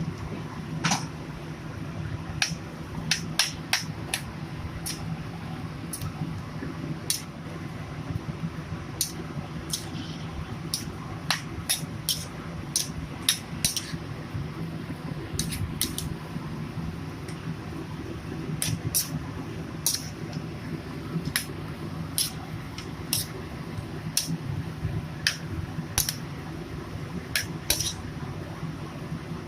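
Metal cooking utensil clinking against a pan in irregular sharp clicks, about one or two a second, over a steady low hum.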